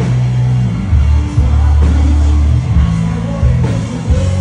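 Rock music with a prominent bass line.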